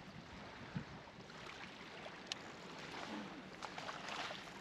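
Faint steady wash of river water, with one sharp small click about two seconds in.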